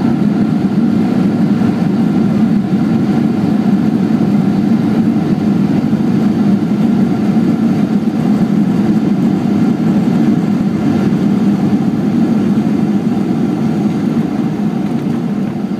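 Cabin noise of a Boeing 737 airliner rolling out on the runway after landing: a steady low drone of jet engines and wheels on the pavement, easing slightly near the end.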